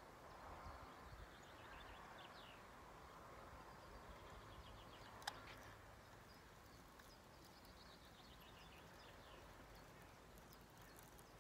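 Near silence: faint outdoor ambience with a few faint series of high ticks that slide in pitch, and one sharp click about five seconds in.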